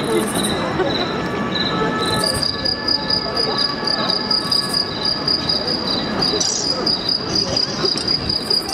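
Cricket-like chirping in evenly spaced pulses, about two or three chirps a second at first, then a faster, higher trill from about two seconds in, over a low crowd murmur.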